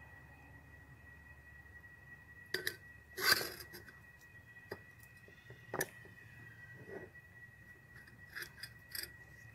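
Small garden trowel scooping soil and pushing it into a glass jar: a few scattered scrapes and clinks against the jar, the loudest about three seconds in.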